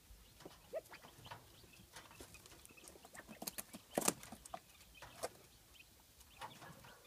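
California quail cock and chicks shifting about in straw bedding: scattered light clicks and rustles, with a louder crackle about four seconds in.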